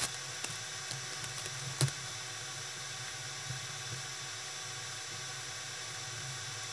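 Steady faint hiss with a few small clicks of tangled jewelry chain and beads being handled; the loudest click comes about two seconds in.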